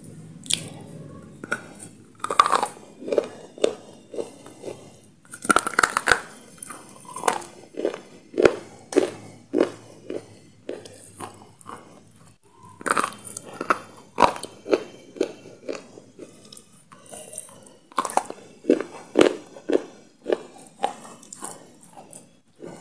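A person biting off pieces of a thin, hard white stick and chewing them with loud crunching. Several sharp crackly bites, each followed by a run of crunchy chews about two or three a second.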